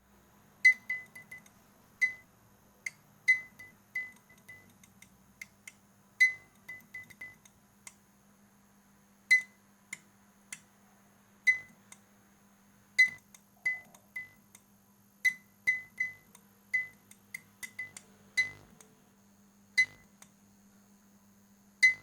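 Faulty fluorescent lamp clicking irregularly as it fails to light, each click with a short metallic ping, one to three a second at uneven strength. A steady low hum runs under the clicks.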